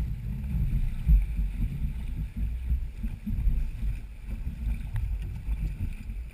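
Low, uneven rumble of wind and water buffeting the bow-mounted camera's microphone as a dragon boat coasts, its crew's paddles at rest.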